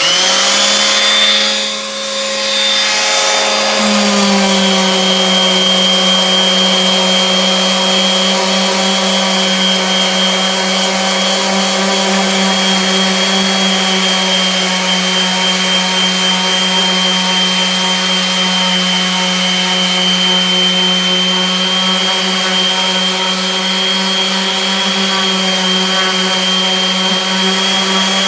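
Electric sander with 60-grit paper and a dust-collection vacuum running steadily on cured Bondo body filler, a loud machine whine with a slight drop in pitch about four seconds in.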